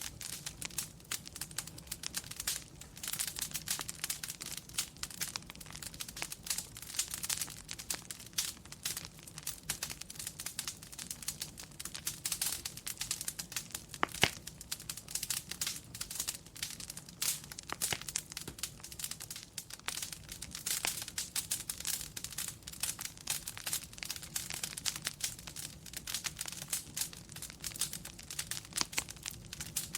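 Wood fire crackling in a fireplace: a dense, irregular stream of small crackles and pops, with one sharper pop about 14 seconds in.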